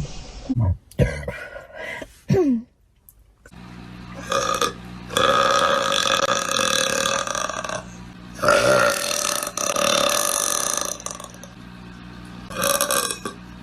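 A run of loud burps from women: three short ones in the first few seconds, one sliding down in pitch, then long, drawn-out burps lasting several seconds each.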